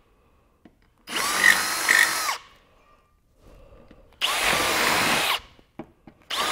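Cordless drill with an 8 mm (5/16-inch) bit being run through a bolt hole in a motorcycle's metal rear frame, opening it up so larger bolts drop through. It runs in short bursts of a second or so with a steady motor whine: twice, then again just before the end.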